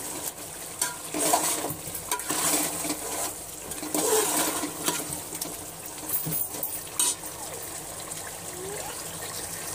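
Chicken pieces sizzling in masala in an aluminium pot, stirred with a metal spoon that scrapes and knocks against the pot's side now and then.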